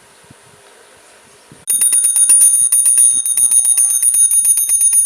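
Homemade battery-powered alarm going off: a loud, shrill, high ringing that pulses rapidly, starting suddenly about a second and a half in.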